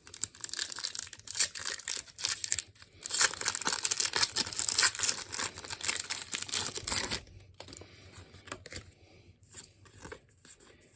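A foil trading-card booster pack wrapper crinkling and tearing open for about seven seconds, then only faint light rustling.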